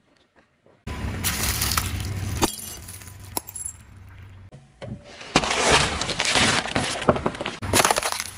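A car tyre rolling over and crushing brittle plastic and the things inside it: crackling and snapping in two main bursts, one from about a second in and a longer, louder one over the second half, with a single sharp crack in between.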